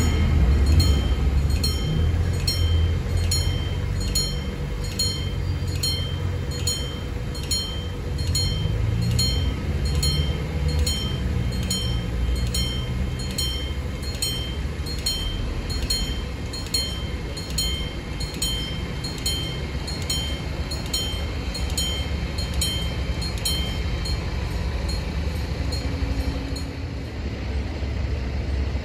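Level-crossing warning bell ringing in a steady, rapid series of about two strokes a second while the barriers are lowered and closed; the ringing stops a few seconds before the end. A low rumble of traffic and wind runs underneath.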